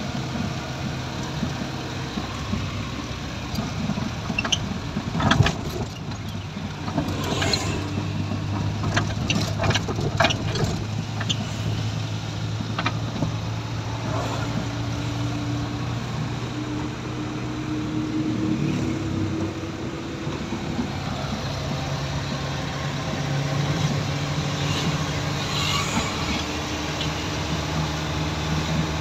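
Car engine running at low road speed, heard from inside the cabin, with a steady hum and road noise; partway through, one tone of the hum slowly rises. A series of sharp clicks and knocks comes between about five and eleven seconds in.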